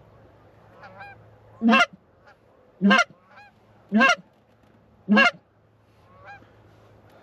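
Four loud honks about a second apart, from a hunter's goose call blown close by to draw in approaching geese, with fainter honking from the distant flock in between.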